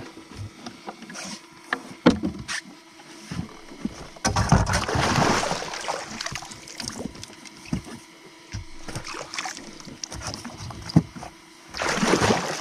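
Knocks and bumps of gear in a fishing boat, with water splashing against the side where a netted pike is held, a longer stretch about four seconds in and another near the end. A faint steady hum runs underneath.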